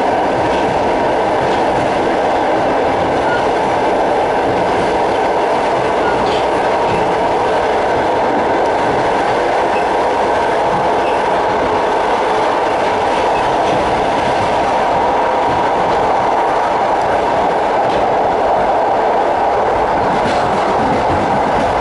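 Passenger train running at steady speed, heard from on board a carriage: a continuous noise of wheels on rails with a few faint clicks.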